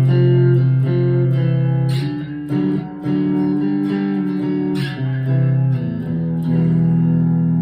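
Chapman ML3 Pro Thinline electric guitar played clean through a small amp on its neck pickup with the tone rolled off: picked chords left to ring, changing every second or two.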